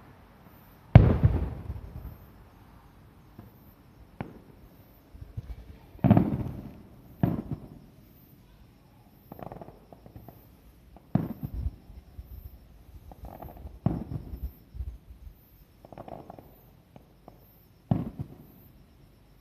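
Aerial fireworks shells bursting overhead: about a dozen irregularly spaced booms, each trailing off in a rumbling echo, the loudest about a second in.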